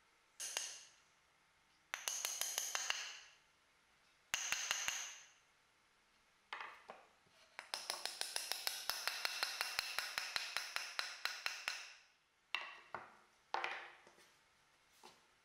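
Wooden mallet tapping wooden slats onto their dowel joints. There are short runs of quick light knocks, then a longer run of about five knocks a second in the middle, and a few single knocks near the end.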